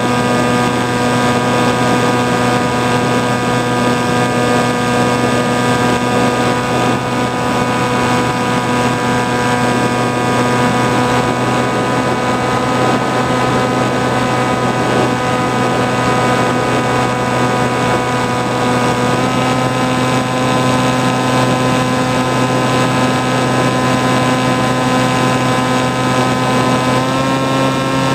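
The motor and propeller of an FPV flying wing, heard from the onboard camera: a steady, loud whine over a rush of noise, stepping up slightly in pitch about two-thirds of the way in and again near the end as the throttle rises.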